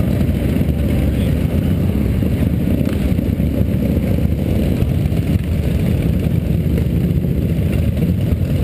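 A line of cruiser motorcycles riding past one after another, their engines making a steady, loud low rumble.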